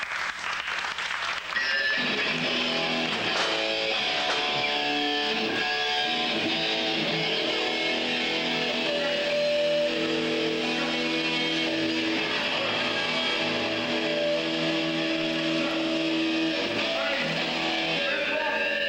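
A hardcore punk band playing live: distorted electric guitar and bass with drums. A few sharp hits come in the first two seconds, then the full band comes in loud and stays steady.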